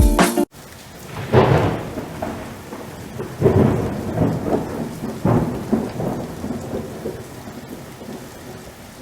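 Rain falling steadily with thunder rolling in several long rumbles, fading toward the end. A music chord cuts off just before the storm begins.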